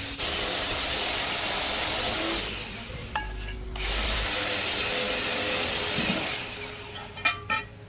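A power tool running in two long stretches, stopping briefly about two and a half seconds in and trailing off near the end, followed by two sharp clicks.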